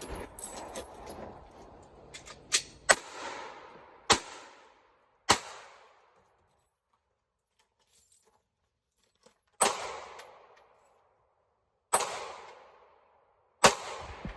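Gunshots: six sharp shots, three about a second apart, then a pause of about four seconds, then three more spaced a couple of seconds apart, each trailing off in a short echo. A few lighter clicks come just before the first shot.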